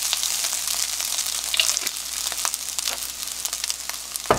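Kimchi fried rice sizzling and crackling in a hot frying pan, with the burner just turned off and half a spoon of sesame oil just added. A single sharp knock near the end.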